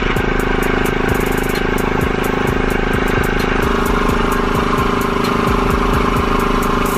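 Airbrush compressor running steadily, with the hiss of the airbrush spraying food colouring onto fondant. The motor's hum drops slightly in pitch about halfway through.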